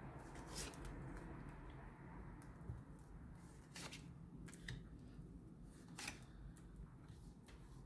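Faint clicks and light rustling of tarot cards being handled and turned over, a few short sharp ticks spread over a quiet background.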